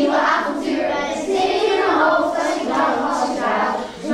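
A children's choir singing together, in sustained sung phrases with a short pause near the end.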